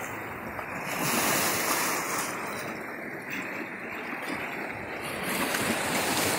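Small Lake Michigan waves lapping and washing over rocks and pebbles at the shoreline, swelling twice.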